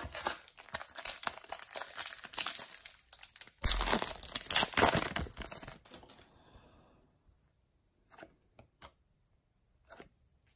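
A Donruss Optic trading card pack's wrapper being torn open and crinkled, in two stretches over the first six seconds, the second louder. Then a few faint clicks as the cards are handled.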